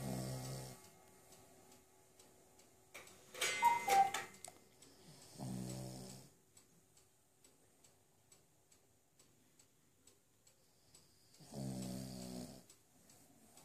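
Slow snoring from a sleeper, one low snore about every six seconds, three in all. Between the first two comes a brief, louder, higher-pitched noise. A clock ticks faintly throughout.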